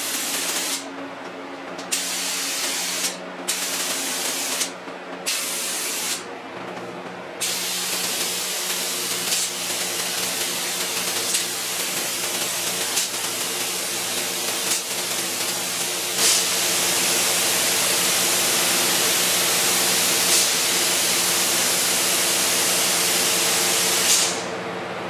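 Gravity-feed spray gun hissing as it sprays epoxy primer onto a car hood: several short trigger pulls over the first seven seconds or so, then one continuous pass that gets louder about sixteen seconds in and cuts off suddenly near the end, over a steady low hum.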